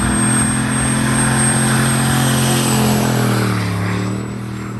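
Turbocharged 8.1-litre big-block V8 running steadily under way, with a thin high whistle over the engine note. About three and a half seconds in, the revs fall and the sound gets quieter.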